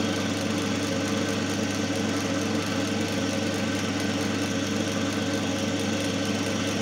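Single-phase capacitor-run induction motor running under load with its coupled load machine, giving a steady hum at about 1440 rpm.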